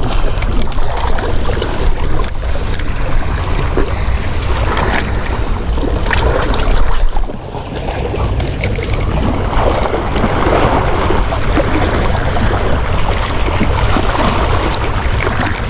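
Wind buffeting the microphone with a steady low rumble, over the wash of sea waves, with a few faint clicks; the noise dips briefly about halfway through.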